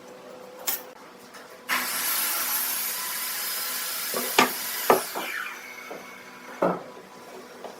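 Woodworking: a tool working wood with a steady hiss for about three seconds, then a few sharp wooden knocks.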